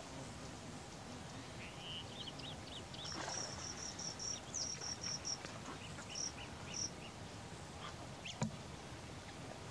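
Birds chirping outdoors: a few short notes, then a quick run of high chirps in the middle and scattered notes after, over a steady hiss. One sharp click sounds near the end.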